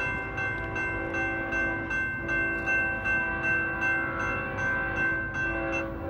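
Railroad crossing warning bell ringing in a steady, fast series of strikes, about three a second, with a lingering ring between them. It signals that a train is approaching the crossing. The strikes stop about six seconds in.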